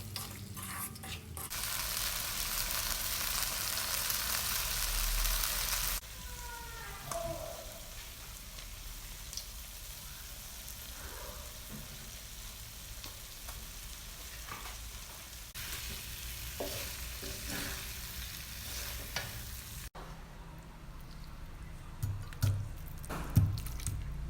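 Chicken and spinach sizzling as they fry in a pan, stirred with a spoon that clicks and scrapes against the pan. The sizzle is loudest in the first few seconds and changes abruptly several times between short edited clips.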